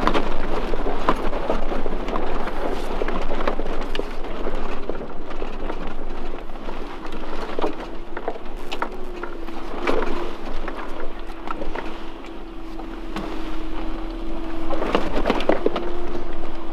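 Inside the cabin of a four-wheel drive driving slowly over a rough dirt and rock track: a continuous rumble of tyres on the ground with frequent knocks and rattles as the body jolts over bumps. A steady engine hum comes in about six seconds in.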